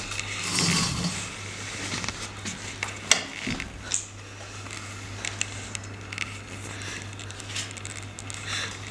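Quiet room tone with a steady low electrical hum under scattered small clicks and rustles, with one sharper click about three seconds in.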